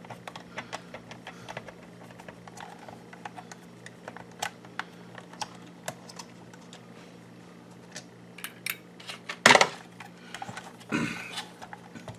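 Scattered light clicks and taps of a small screwdriver working screws out of a car climate control unit. A louder clatter comes about nine and a half seconds in and another at about eleven seconds. A faint steady hum runs underneath.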